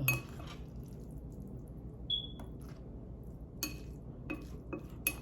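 Chopsticks stirring noodles in a bowl: a handful of light, separate clicks and clinks against the bowl spread over a few seconds, one with a brief ring.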